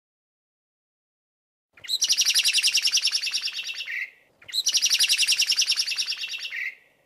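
Bird song sound effect, sold as a blackbird singing: two nearly identical bouts, each a fast, even run of high trilled notes ending in a lower drawn-out note, starting after a couple of seconds of quiet.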